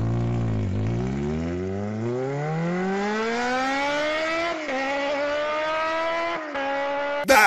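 Plastic flying-saucer hamster wheel spun by running hamsters: a whirring hum that rises steadily in pitch as the wheel speeds up for about four and a half seconds, then holds nearly level until it cuts off just before the end.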